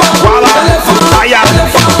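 Instrumental passage of an upbeat Ivorian pop song, with a steady dance beat and bass.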